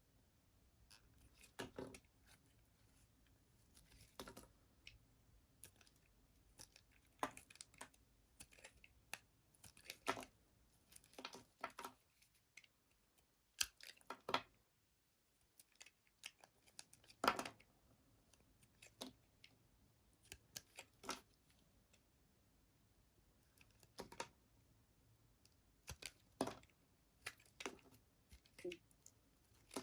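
Soap being cut: a series of short, crisp crunching cuts, roughly one every one to three seconds, with quiet between them.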